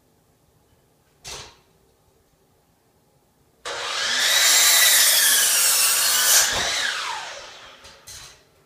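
Electric miter saw starting suddenly about three and a half seconds in with a rising whine and cutting through a wooden board. The motor then winds down with a falling pitch near the end.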